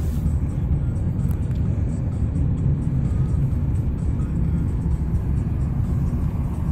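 Steady low rumble of a car's engine and tyres heard from inside the cabin while driving, with music in the background.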